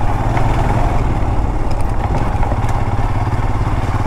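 Motorcycle engine running steadily at low riding speed, with a fast, even low pulse.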